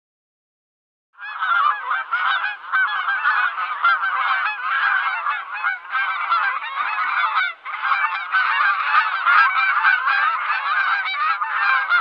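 A flock of geese honking, starting about a second in: many calls overlapping in a dense, continuous din.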